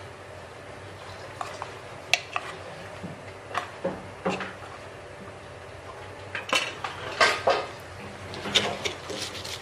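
Irregular wooden knocks as chillies, shallots and garlic go into a wooden mortar (cobek), then quicker clusters of knocks as the wooden pestle (ulekan) starts pounding and crushing them for sambal.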